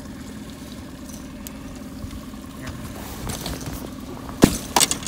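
Boat's outboard motor idling steadily. About four and a half seconds in there is a sharp knock, followed by a short clatter.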